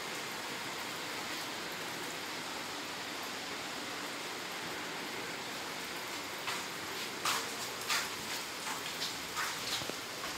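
Steady hiss of light rain falling. From about six and a half seconds in, a scatter of irregular sharp taps sounds over it.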